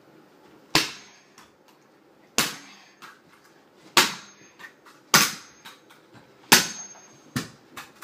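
A hammer striking a small metal lock six times at uneven intervals of roughly one to one and a half seconds. Each blow is a sharp, loud crack with a brief high metallic ring and small rattling knocks after it.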